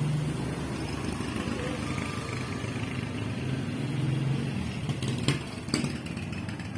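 A motor engine running steadily with a low hum that swells a little midway, and two light clicks near the end.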